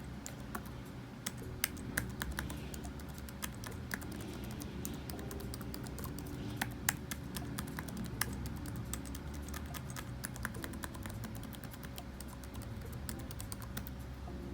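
Typing on a Lenovo ThinkPad laptop keyboard: a fast, irregular run of light key clicks.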